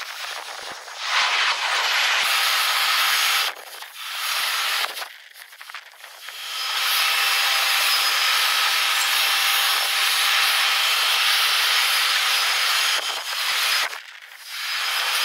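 Airliner jet engine noise played back at four times speed, heard as a steady high hiss with faint whining tones and no low rumble. It cuts off and restarts abruptly a few times as one aircraft's clip gives way to the next.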